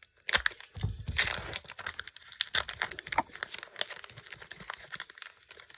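Foil booster-pack wrapper being handled and torn open, a dense run of irregular crinkling and crackling.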